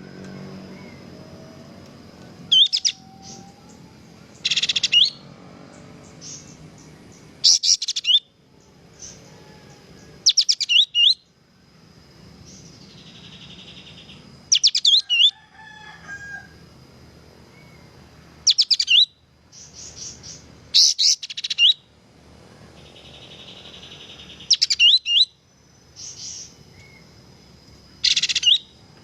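Kapas tembak, a bulbul, singing in short bursts of fast, high, sharp notes, one phrase every two to three seconds, the lively full song that bird keepers call 'gacor'.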